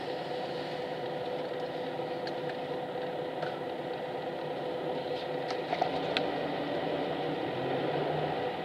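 Cabin noise inside a highway bus standing at a traffic light: the diesel engine idling with a steady hum and vibration, and a few light clicks about two-thirds of the way in. Near the end the sound swells a little as the bus begins to move off.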